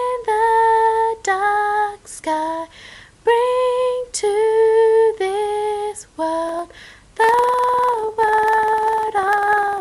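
A woman singing a slow song melody in held notes, phrase after phrase, with short breaks for breath between them.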